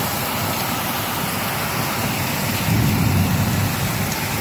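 Heavy thunderstorm rain pouring steadily, with a low rumble swelling for about a second just past the middle.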